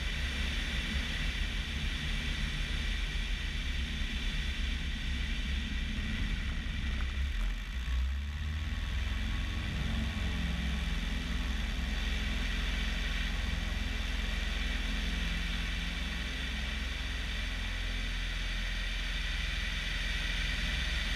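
Light aircraft's Lycoming four-cylinder engine and propeller running in flight, heard from a strut-mounted camera outside the cabin, mixed with steady wind rush over the microphone. The low rumble shifts slightly about eight seconds in.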